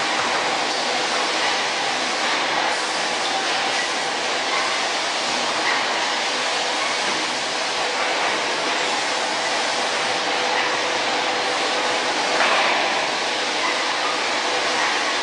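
Steady running noise of factory machinery by an autoclave's roller-conveyor loading line: an even hiss with faint steady hum tones, and a brief louder clunk about twelve seconds in.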